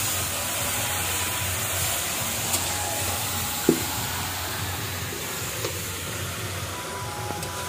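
Marinated duck meat sizzling in hot oil in a kadai, the sizzle easing gradually. A metal spatula knocks against the pan twice.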